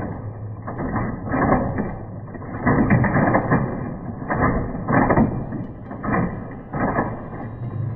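Matchbox Volcano Escape playset's built-in rumbling volcano sound effect from its small speaker, coming in repeated surges, with the plastic mechanism clattering as the eruption ball rolls down the track.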